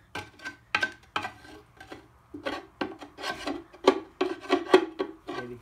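Hand scraper rasping caked grime off the front of a 7.3 IDI diesel engine, in a run of short, uneven strokes about two a second.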